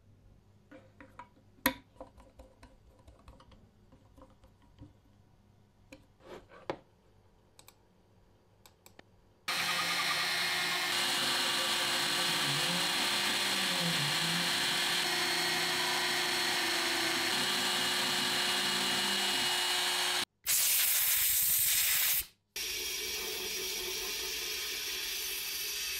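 Faint clicks and scrapes of an M3.5 tap cutting threads in a copper part. About a third of the way in, a small engraving machine's spindle starts running steadily as it engraves the copper, with tones that shift as it moves. Near the end, a sandblaster hisses loudly twice, with a short break between.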